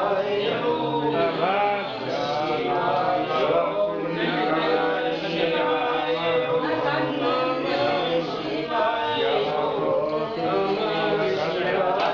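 Several voices chanting Hindu devotional mantras together in a continuous sing-song, with some notes held.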